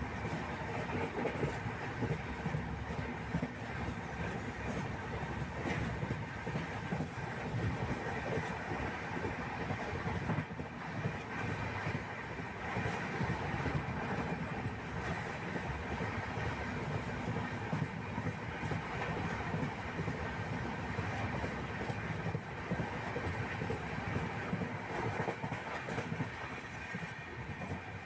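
Steady rumbling, rattling noise of a moving vehicle, going on without a break.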